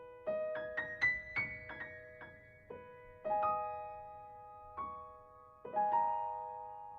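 Soft background piano music. A quick rising run of notes comes first, then a few single notes and chords, each left to ring and die away.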